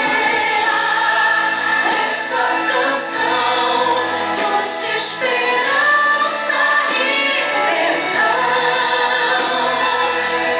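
A song: voices singing together over instrumental backing, continuing steadily throughout.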